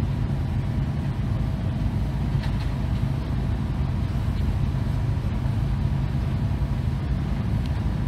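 Steady low rumble of city road traffic.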